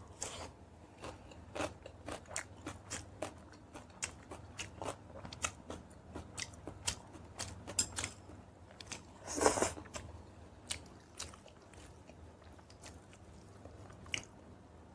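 A person eating: chewing and biting with many quick crunchy, wet clicks, thick at first and thinning out later. There is one louder, longer mouthful sound about nine and a half seconds in.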